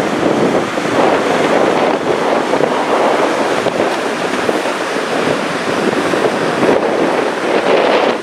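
Gullfoss waterfall's steady rush of falling water, with wind on the microphone.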